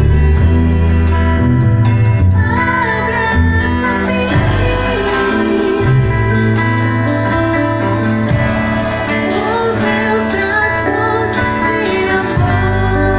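A live band playing a song: drum kit, bass and guitar, with a singing voice coming in about two and a half seconds in.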